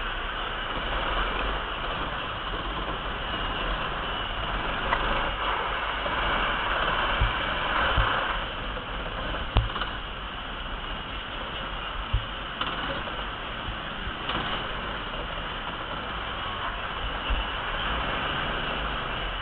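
Ice kart running, heard from a camera mounted on the kart: a steady rattling mechanical noise, with four dull thumps between about seven and twelve seconds in.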